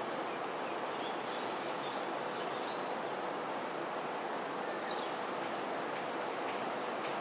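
Steady outdoor background noise, an even rushing hum with no clear beginning or end, under a thin constant high-pitched tone. A few faint, short high chirps sound about a second in and again past the middle.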